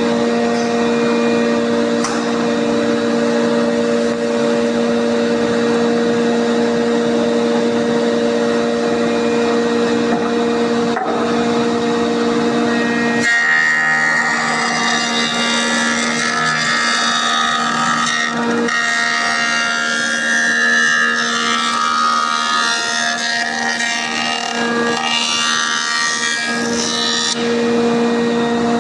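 Woodworking jointer (surface planer) running with a steady hum. About halfway through, a pine board is fed over the spinning cutterhead and the hum gives way to a rougher, higher cutting noise of the knives planing the wood for roughly fourteen seconds, before the machine runs free again near the end.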